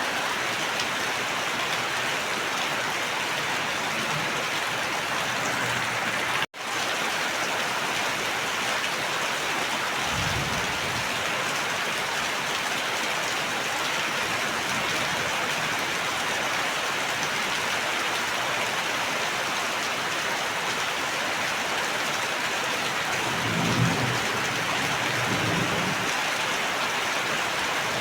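Steady rain falling hard, with low rumbles of thunder twice, about ten seconds in and again near the end. The sound cuts out completely for a split second about six seconds in.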